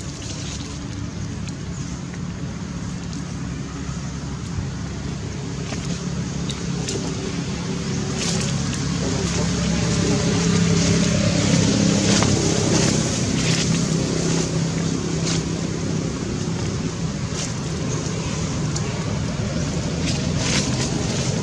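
A motor vehicle engine, likely a motorbike, passing on the road behind: a steady hum that grows louder toward the middle and then eases off, with a few scattered short clicks.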